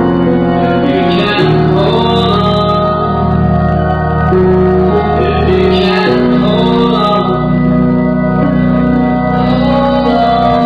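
Music: sustained organ chords that change about a second and a half in and again about six seconds in, with a voice singing over them.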